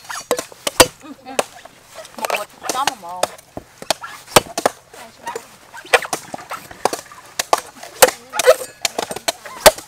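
A cleaver chopping into the husk of a young green coconut on a round wooden chopping block: a dozen or more sharp strikes at an uneven pace.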